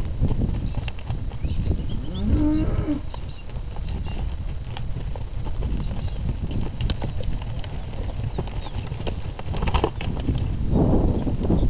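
Hereford and Hereford x Limousin calves mooing, with one call about two to three seconds in and more calls near the end, over a steady low rumble.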